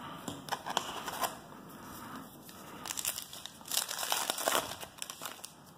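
Crimped foil wrapper of a trading card pack crinkling as it is handled, then torn open, in irregular bursts that are densest and loudest a little after halfway.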